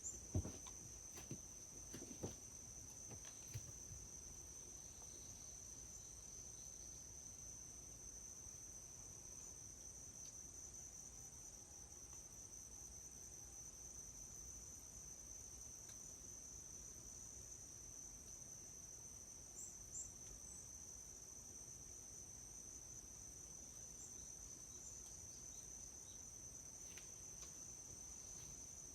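Steady, high-pitched insect chorus trilling without a break, typical of crickets in a forest at night. A few soft knocks fall in the first few seconds and one more about two-thirds of the way through.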